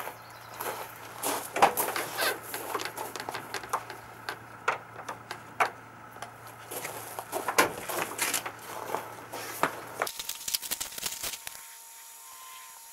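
Masking tape being pulled off the roll and pressed along a camper van's lower body: irregular crackling and clicks. About ten seconds in it cuts to a quieter stretch with a faint steady hum.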